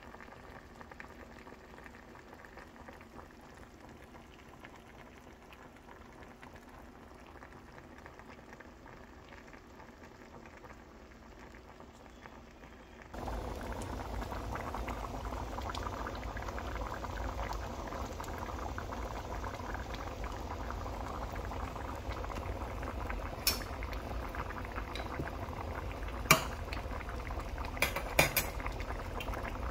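A pot of vegetable stew bubbling hard at a full boil, which comes in suddenly about halfway through after a faint, steady cooking sound. Near the end come a few sharp metal clinks.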